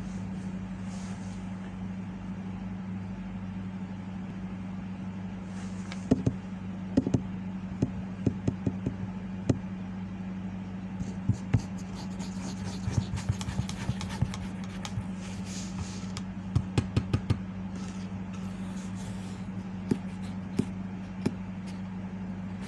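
Fireworks going off: sharp bangs starting about six seconds in, coming thick and fast in the middle with crackling, over a steady low hum.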